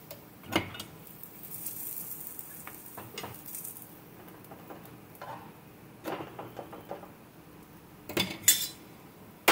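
A metal spoon clinking and scraping against an iron tawa and steel utensils, over a faint sizzle of a paratha frying in oil. The loudest clatter comes near the end.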